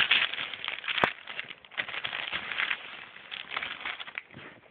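Plastic packaging crinkling and rustling as a boxed action figure is handled and turned, with one sharp click about a second in.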